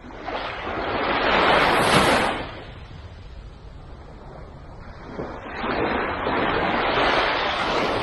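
Small waves washing up onto a sandy beach in two foaming rushes, the first swelling and fading about two seconds in, the second starting about five seconds in and lasting to the end, over a low steady rumble.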